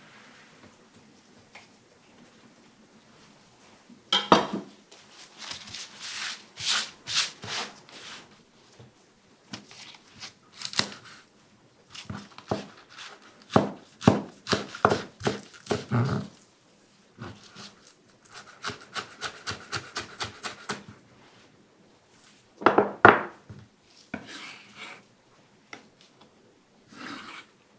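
Chef's knife slicing green onion tops on a wooden cutting board, starting about four seconds in: a long series of crisp knife strokes, including a quick even run of about four to five chops a second. Near the end the knife scrapes the chopped pieces off the board into a small dish.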